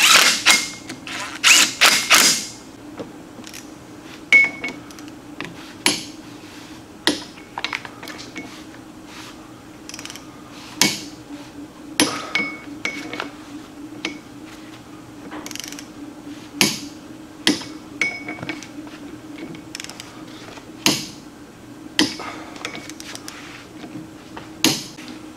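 A cordless drill runs the ring-gear bolts down in two short bursts near the start. Then a click-type torque wrench gives sharp single clicks every few seconds, often two close together, as each ring-gear bolt on the differential carrier reaches torque. A steady low hum runs underneath.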